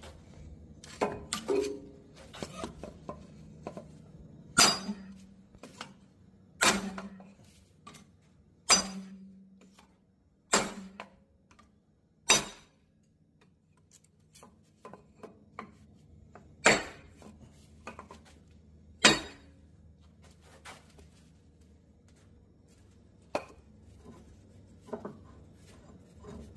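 Metal tools and parts clanking and clinking during reassembly of a tractor's PTO shaft housing. About eight sharp clanks come at irregular intervals a couple of seconds apart, some ringing briefly, among lighter clicks.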